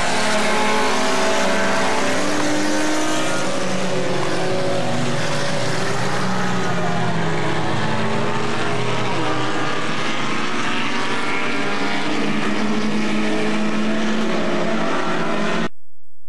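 Several hornet-class compact race cars running at speed around a short oval, their engine pitches rising and falling as they go round. The sound cuts off suddenly near the end.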